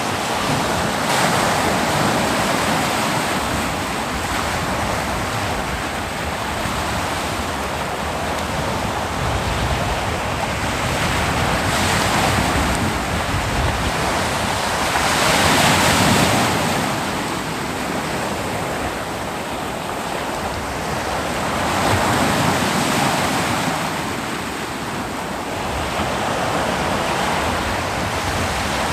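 Ocean surf washing onto a beach: a continuous wash of water noise with waves swelling and breaking every few seconds, the loudest about halfway through, and some wind on the microphone.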